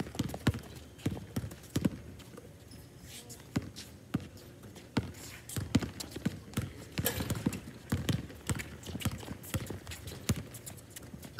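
Basketball dribbled on a hard outdoor court: a string of irregular sharp bounces, mixed with players' footsteps.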